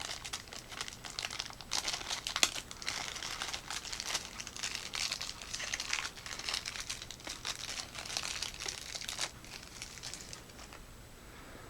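Crinkling and rustling of plastic packaging handled by hand, with a few sharp clicks, as a flashlight's pocket clip is unwrapped and fitted. It dies away about ten and a half seconds in.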